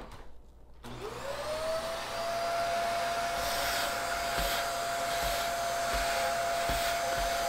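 Vacuum cleaner with a hose attachment switched on about a second in: its motor whine rises quickly to a steady pitch and holds, with a hiss of suction, as it draws loose coffee grounds and bean fragments out of an espresso grinder's burr chamber.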